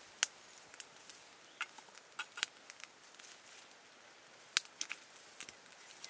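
Wood campfire crackling: irregular sharp pops and snaps, about nine of them, over a faint hiss.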